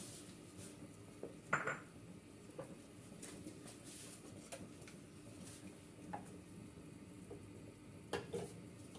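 Light, scattered clinks and knocks of kitchenware against a stainless steel pan, with a wooden spatula scraping and spreading grated tomato in the pan near the end.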